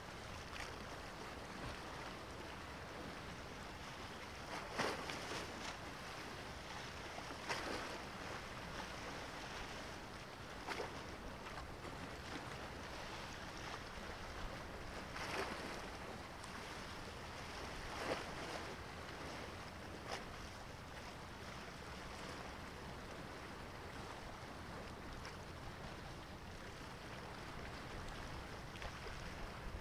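Small waves splashing at the water's edge, about six separate splashes a few seconds apart, over a steady hiss of wind and sea.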